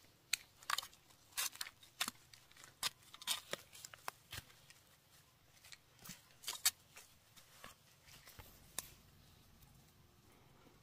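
Ginger clumps being pulled up by hand and shaken and knocked free of soil: roots tearing and dirt crumbling in a run of short, irregular snaps and rustles that dies away about nine seconds in.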